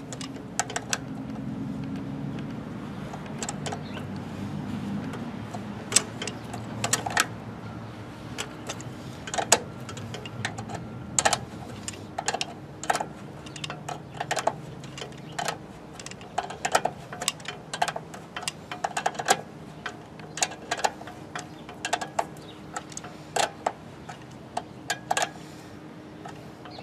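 Pliers clicking and tapping against a copper ground wire and a metal grounding screw as the wire is bent and worked around the screw: many sharp, irregular metallic clicks, over a faint low hum in the first few seconds.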